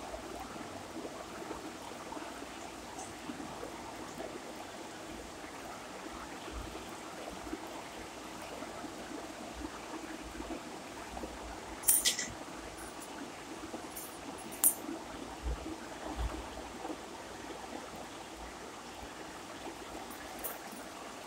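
Quiet, steady background hiss with no speech. A few brief sharp clicks and soft low thumps come a little past halfway.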